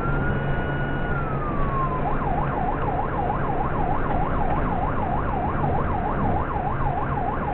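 Police car siren on a wail, holding a high note and then falling, switching about two seconds in to a fast yelp of about two and a half rising-and-falling sweeps a second. Road noise from the moving car lies underneath.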